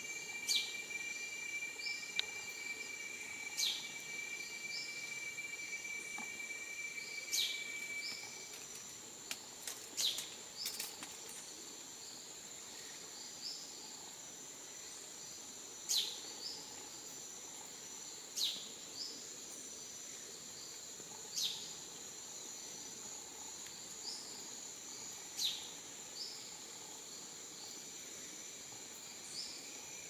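Rainforest ambience: a steady high-pitched insect drone, with a short high call that falls in pitch, repeated every few seconds. A second steady insect tone stops about a third of the way in.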